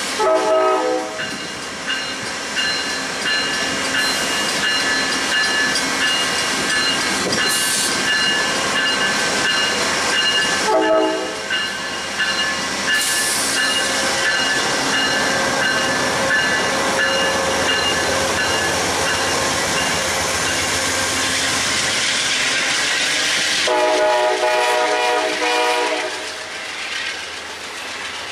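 Amtrak GE Genesis diesel locomotive passing with a train, sounding its horn three times: near the start, about eleven seconds in, and a longer blast near the end. A bell rings steadily through the first two thirds, and the engine and the wheels on the rails are loud throughout as the coaches go by.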